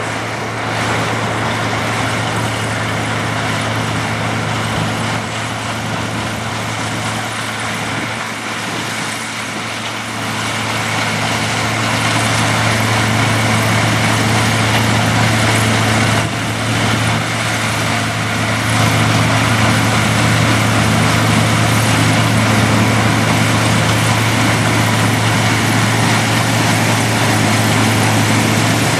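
Sugarcane harvester running steadily: a constant low engine drone under a dense mechanical din, growing louder from about twelve seconds in.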